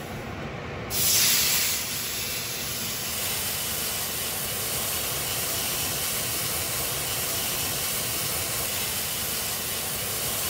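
A steak laid into a smoking-hot 8-inch cast iron skillet about a second in: a loud burst of sizzling that settles into a steady sizzle.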